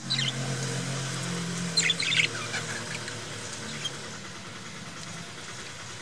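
Budgerigars chirping in short bursts, the loudest cluster about two seconds in, over a steady background hiss. A low hum is heard for the first two seconds, then fades.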